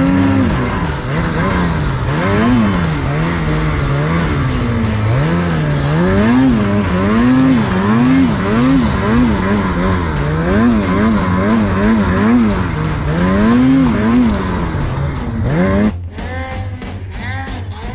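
Ski-Doo Summit Expert Turbo R snowmobile's turbocharged two-stroke engine revving up and down over and over as the sled is worked through deep powder between trees. About sixteen seconds in, the engine falls back and guitar music comes in.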